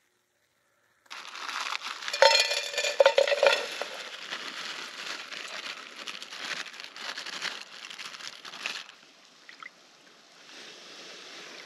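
A plastic bag crinkling and rustling as it is handled over a cooking pot, loudest a couple of seconds in and fading out after about nine seconds. Near the end there are quieter water sounds as something is rinsed in the lake shallows.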